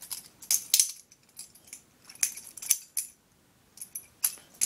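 Balisong (butterfly knife) being flipped through a rollover trick: its metal handles and blade click and clack against each other in several quick clusters of sharp metallic clicks with short pauses between.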